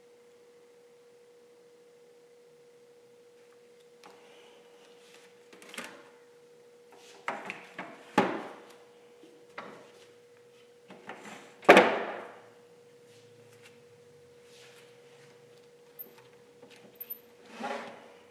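Paintbrush work on a stretched canvas on a wooden easel: irregular scrubbing strokes and a few knocks against the easel, the loudest about two-thirds of the way through. A steady faint high hum sounds underneath.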